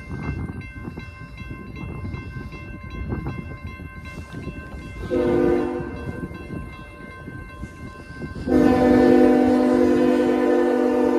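Two CSX freight locomotives running light, their engines and wheels rumbling, while the lead unit's multi-tone air horn sounds a short blast about five seconds in, then a long, loud blast starting near the end.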